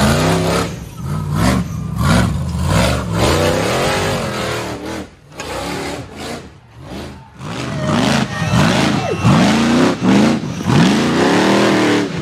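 Rock bouncer buggy's engine revved hard in repeated bursts as it climbs a rocky hill, its pitch rising and falling over and over.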